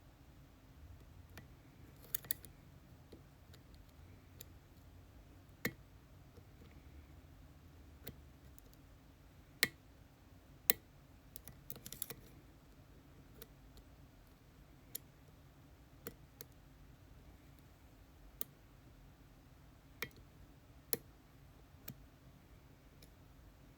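Scattered light clicks and taps from an ASSA Twin Exclusive lock and the picking tools in it, irregular and about one every second or two, with a few quick clusters.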